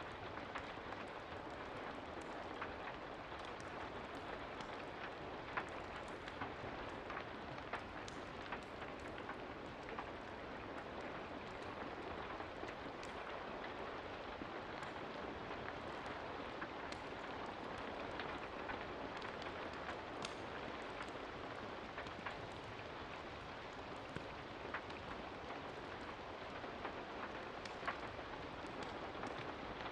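Steady rain, a dense even hiss with scattered sharp drip-like ticks throughout.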